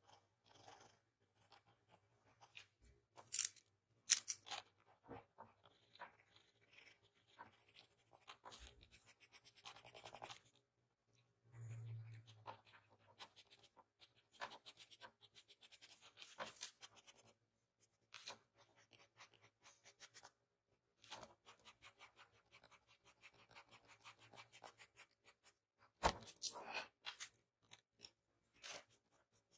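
Pencil lead scratching on drawing paper in many quick, short strokes. A few louder knocks come about three and four seconds in and again near the end.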